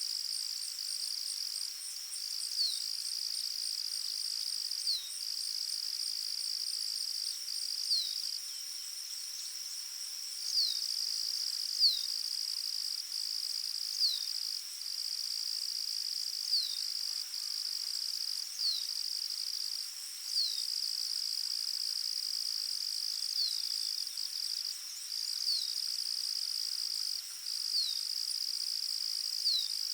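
Forest ambience: a steady, high-pitched insect trill with brief breaks, and a bird's short down-slurred chirp repeating about every two seconds.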